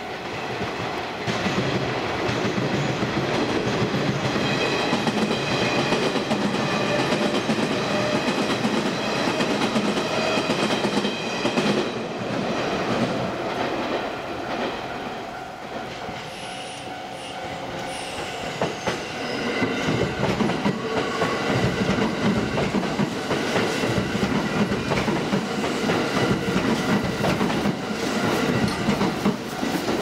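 Japanese level crossing alarm ringing steadily while Kintetsu electric trains pass, their wheels clattering over the rail joints. The train noise swells twice, with a softer lull around the middle.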